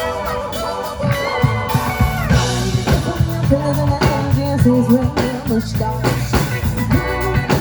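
Rock band playing live at a sound check: drum kit hits over a low bass line, with singing. The mix is still being adjusted.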